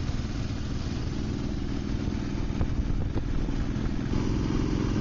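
Royal Enfield motorcycle engine running while riding on the road, heard from on the bike as a steady low beat. It grows a little louder about four seconds in.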